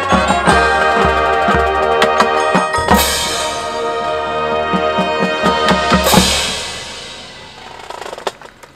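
Marching band playing a held brass chord over a steady drumline beat with bass and snare drums, cymbal crashes about three seconds in and again about six seconds in; after the second crash the sound dies away over the last two seconds.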